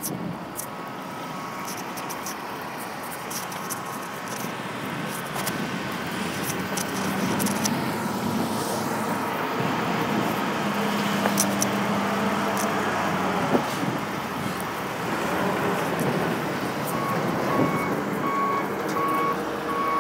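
Heavy vehicle engine running and growing louder partway through. Near the end a truck's backup alarm starts beeping at an even pace.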